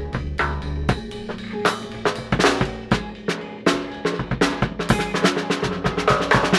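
A drum kit being played: a steady beat of strikes that quickens into a fast run of strokes near the end.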